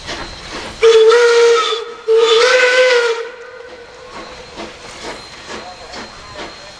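Narrow-gauge steam locomotive whistle blown twice, each blast a little over a second long, the second wavering slightly in pitch. Behind it is a steady steam hiss with even, rhythmic exhaust beats from the engine working past.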